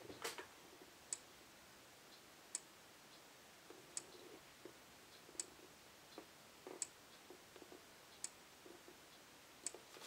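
Faraday (FOS) 5511 fire-alarm strobe running without its horn, giving one sharp click each time it flashes, about every 1.4 seconds, a slow flash rate. There is no capacitor charging whine, only the clicks.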